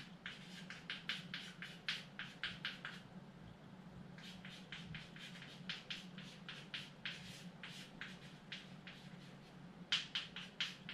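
Chalk writing on a blackboard: quick runs of short taps and scratches as each character is stroked out, pausing briefly about three seconds in. A steady low hum runs underneath.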